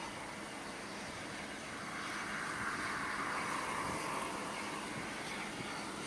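Case IH Axial Flow 9230 combine harvester running while cutting wheat: a steady rushing machine noise that grows louder about two seconds in and eases slightly toward the end.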